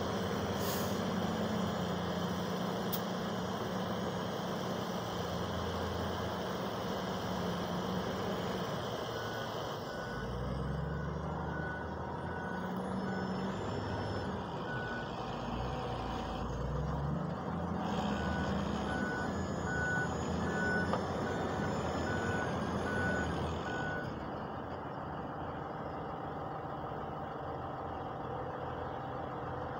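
Hitachi ZW220 wheel loader's diesel engine working under load as it tows a tractor and trailer stuck in mud. The engine revs up twice, about a third of the way in and again just past halfway, and each time its reversing alarm beeps steadily for about six seconds.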